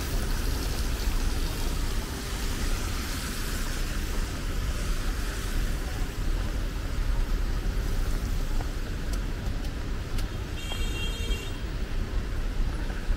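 Steady city road traffic on a wet street: a low rumble of passing cars with tyre hiss. A short, high electronic beep sounds near the end.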